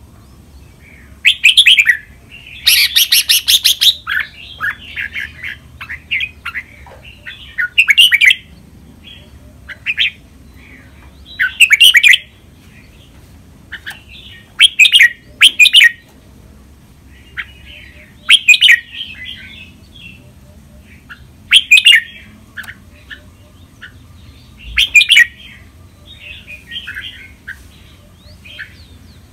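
Caged red-whiskered bulbul singing: short, loud, warbling phrases that come every one to four seconds, with a harsh rasping burst about three seconds in.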